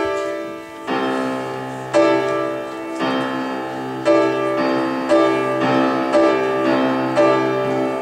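Upright piano playing the introduction to a choral song: full chords struck about once a second, each left to ring before the next.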